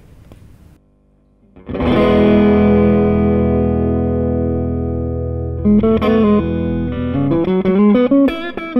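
Strat-style electric guitar played through an SCW Audio Blackstone Overdrive, a Bluesbreaker-clone pedal giving light overdrive with the gain at about noon, its voicing switch in the lower, fatter position. After about a second and a half of quiet, a strummed chord rings out and slowly fades, followed by a quick run of single notes.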